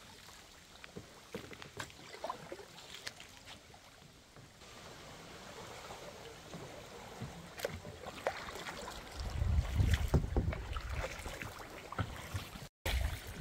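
Kayak on the move: paddle dips and scattered knocks against the hull, with light water noise. From about nine seconds in, a low rumble of wind on the microphone takes over, broken by a brief dropout near the end.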